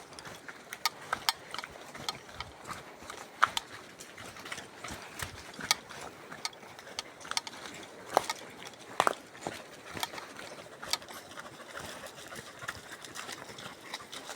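Footsteps on a forest trail: irregular sharp clicks and knocks, about one or two a second, over a low hiss.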